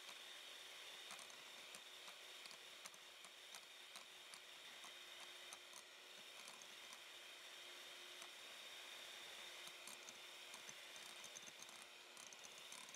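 Electric hand mixer running with a faint, steady whir, its beaters whipping egg yolks and sugar into a thick batter, with many light ticks and squishes from the batter and beaters in a glass bowl.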